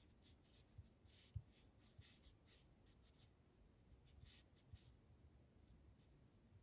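Near silence with faint, scattered soft taps and brief scratchy sounds from small hand movements.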